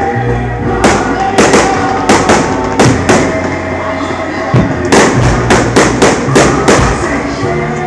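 Aerial fireworks exploding: separate sharp bangs through the first three seconds, then a quick string of bangs from about five to seven seconds in.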